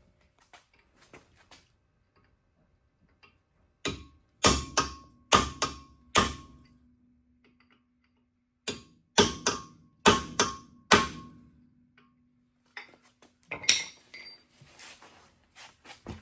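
Hammer blows on a car's brake rotor to knock it off the hub: two bursts of about six sharp strikes each, the rotor ringing on after them, then a few lighter knocks near the end.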